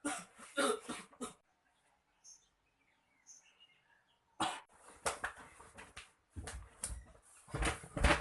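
A person coughing on a drink of tea: a short fit of coughs at the start, a pause, then a longer run of coughs from about halfway.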